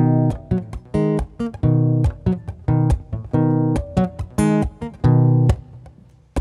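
Acoustic guitar played alone, with chords and single notes picked in a steady rhythm, about two to three a second, each ringing briefly. The playing thins out and goes quieter about five and a half seconds in.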